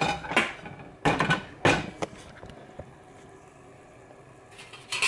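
Air fryer basket being handled: a few short knocks and clunks of the nonstick basket in the first two seconds, then a quiet stretch, with more clatter starting near the end.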